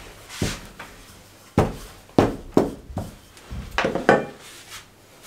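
Wooden rolling pin working a thin sheet of dough on a wooden tabletop, knocking against the wood: about seven sharp knocks at irregular spacing.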